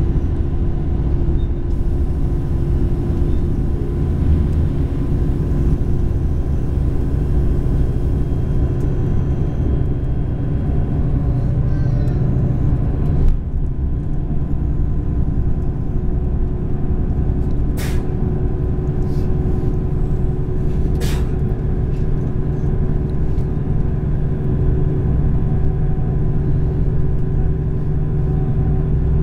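Passenger train running along the line, heard from inside the carriage: a loud, steady low rumble from the wheels and running gear with a constant hum. There is a single thump about halfway through and two sharp clicks later on.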